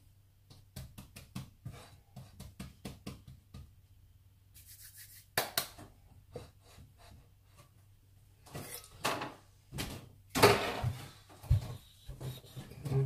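Hands patting and tucking a loaf of bread dough into a ceramic baking dish on a wooden chopping board: a run of quick soft taps, then scattered louder knocks and rubbing in the second half.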